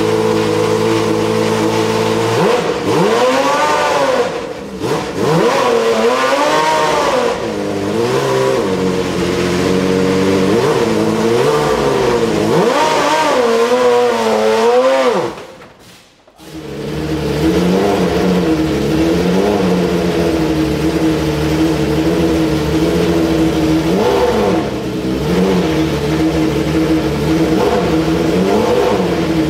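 Ferrari 412 T2's 3.0-litre V12 Formula 1 engine running at a steady high idle, then blipped repeatedly, the revs swelling up and dropping back again and again. After a brief drop-out just past halfway, it runs steadily again with a few small blips.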